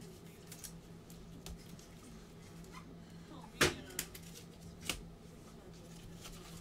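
Low steady hum with a few sharp taps or clicks, the loudest about three and a half seconds in and two fainter ones shortly after.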